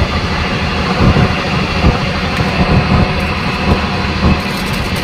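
Fishing boat's engine running, a steady low rumble with hiss.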